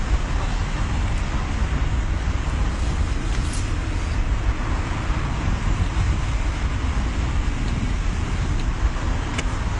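Steady road and engine noise of a moving car, heard from inside the cabin, with a low rumble.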